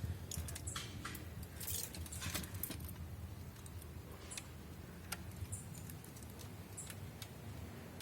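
Light clicks and rattles, many in the first three seconds and fewer after, over a low steady hum.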